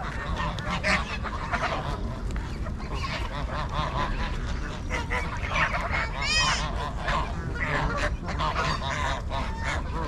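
A large flock of Canada geese and white domestic geese honking and calling over one another without a break, with one clear call standing out about six seconds in.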